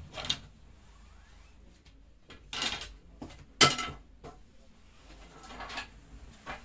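Cloth rustling and brushing on a cutting table as a trouser piece is turned over and smoothed, in about five short swishes, with one sharper knock a little past the middle.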